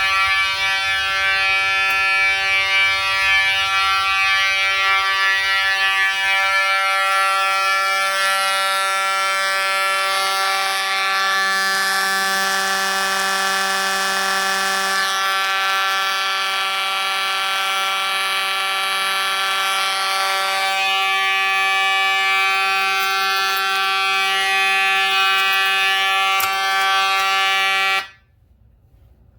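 Edwards fire alarm horn sounding a loud, continuous buzzing tone, set off by a manual pull station, then cutting off suddenly near the end.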